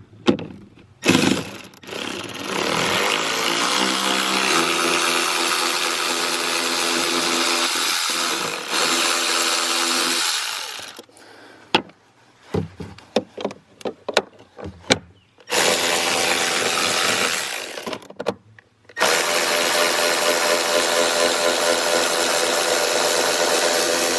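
Milwaukee M12 cordless electric ratchet running in three long bursts to back out 10mm bolts, with a motor whine that climbs in pitch as the first run spins up. Between runs come clicks and knocks of the ratchet and socket.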